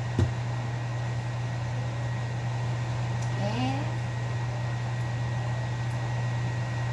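Steady low mechanical hum over an even background hiss, with a single sharp click just after the start and a brief faint voice a little after the middle.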